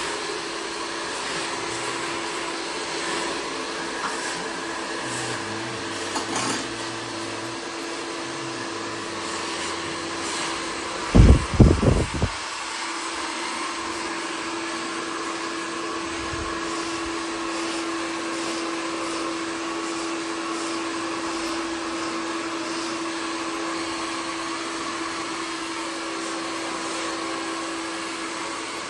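Handheld hair dryer blowing steadily, its motor giving a constant whine over the rush of air. A brief cluster of low thumps about eleven seconds in.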